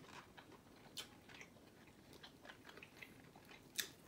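Faint chewing and wet mouth clicks of someone eating fried black tiger shrimp meat. A sharper click comes about a second in and another near the end.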